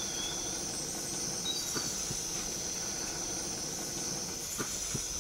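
Steady hiss of a portable gas-canister burner under a pot of herb soup, with a few faint ticks from the simmering pot.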